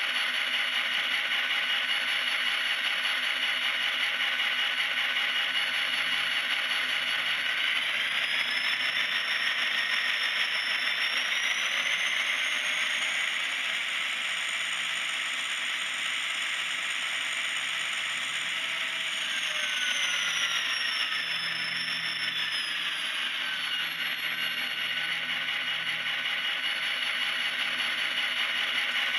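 Digital diesel locomotive sound from an ESU LokSound Select Micro decoder in an N-scale SD45 model, played through its tiny speaker with no deep bass. The turbocharged EMD prime mover runs and is notched up with Drive Hold, so the engine revs while the model stays put: a rising whine about a third of the way in, held at the top, then winding back down.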